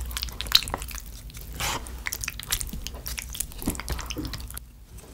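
Wooden chopsticks stirring sauce-coated tteokbokki rice cakes and fish cake in a plastic tub: sticky stirring noises with many small clicks and taps of the chopsticks.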